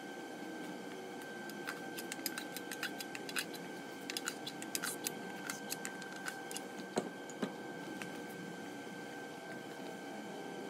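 A scatter of short, sharp clicks and ticks from a piston-and-connecting-rod assembly being handled against an aluminium LS1 engine block, the loudest click about seven seconds in. Underneath is a steady background hum with a thin high tone.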